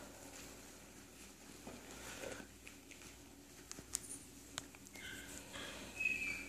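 Cairn Terrier puppies playing in a wire pen: faint scuffling and a few light clicks. From about five seconds in, short high-pitched dog whines.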